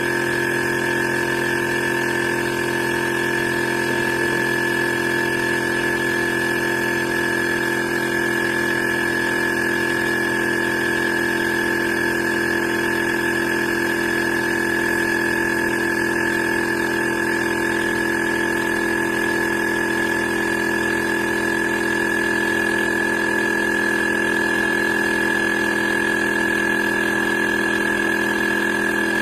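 Inzeetor ITI-001 12V portable tire inflator's compressor running steadily, a constant hum with a high whine over it.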